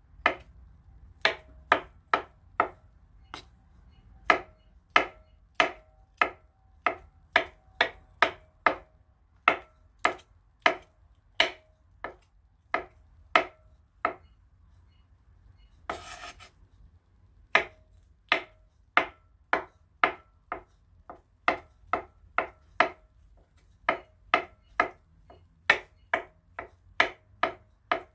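Chef's knife chopping hard-boiled eggs on a wooden cutting board: a steady run of sharp knocks as the blade meets the board, about two a second. About halfway through the knocks stop briefly, there is a short scraping noise, and then the chopping starts again.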